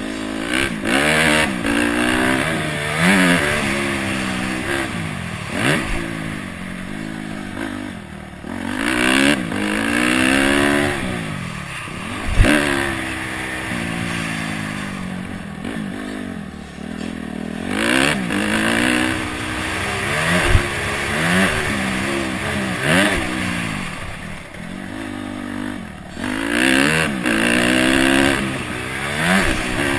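Honda CRF250X's single-cylinder four-stroke engine revving up and falling away again and again as the bike is ridden around a motocross track. Two sharp knocks cut through, the loudest about twelve seconds in and another about twenty seconds in.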